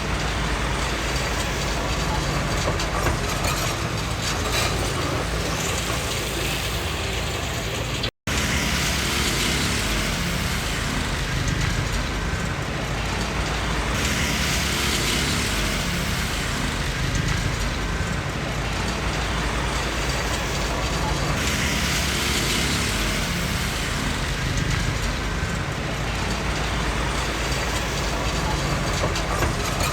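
Komatsu D20P crawler bulldozer's diesel engine running steadily under work. About eight seconds in, the sound drops out for an instant.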